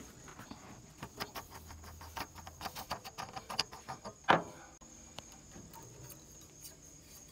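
Cast metal filler cap on a Caterpillar D6B bulldozer's hydraulic tank being unscrewed and lifted off by hand: a run of small clicks and scrapes, with one louder sharp sound about four seconds in. Crickets chirp steadily in the background.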